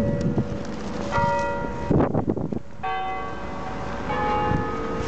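Church bells ringing: several bells of different pitch struck in turn, each strike ringing on under the next. A brief rush of noise comes about two seconds in.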